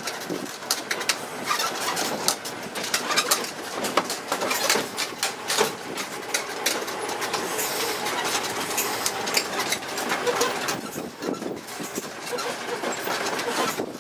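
Road-going tourist mini train moving along a street, heard from an open rear carriage: a steady rumble of tyres and engine with frequent rattles and clicks from the carriages.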